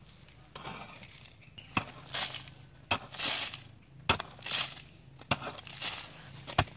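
A hoe chopping into dry, crumbly soil about five times, roughly once a second, each strike followed by a short scrape as the loose earth is pulled aside, digging out a cricket burrow.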